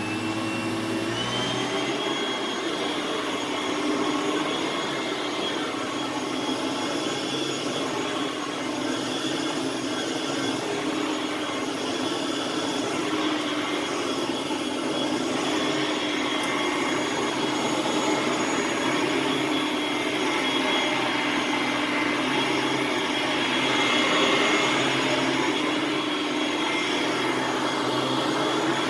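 Hoover Platinum Collection bagged upright vacuum cleaner running. Its motor finishes winding up to speed about a second in, then runs steadily with a high whine.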